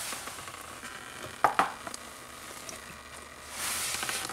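Engine oil dribbling from behind the oil pump into a catch pan as the pump is pried off the block, a soft hiss that swells near the end. Two sharp clicks of a tool against metal about one and a half seconds in.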